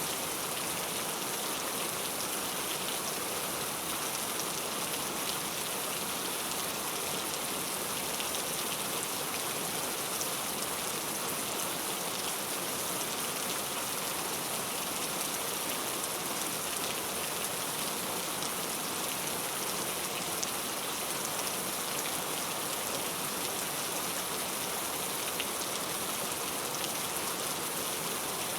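Heavy, steady rain falling, an even hiss with scattered drop ticks.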